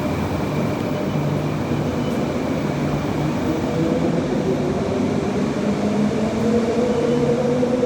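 Electric suburban train running, with a steady rumble and a motor whine that rises in pitch from about three and a half seconds in as the train picks up speed.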